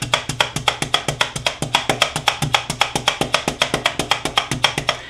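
Hand-held bladed meat tenderizer punched rapidly into a beef cutlet on a wooden cutting board: fast, even clicking of the spring-loaded blades, about six strokes a second, as they pierce the meat to break its fibres.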